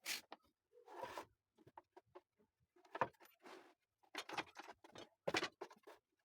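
Irregular short scrapes and taps of hand work, about eight separate bursts with no motor running.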